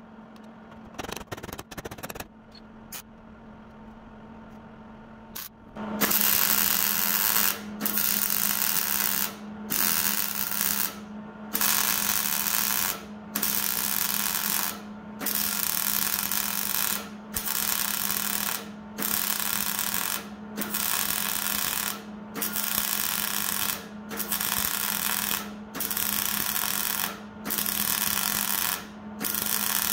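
MIG welder arc on sheet steel, fired in a long run of short, evenly spaced bursts about every two seconds, tack welding a new lower door post into the cab. A few light clicks come before the welding starts about six seconds in.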